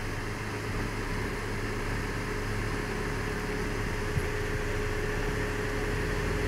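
Jeep Renegade crawling forward at low speed over rough trail, its engine running with a steady low hum and a steady higher whine. One small knock about four seconds in.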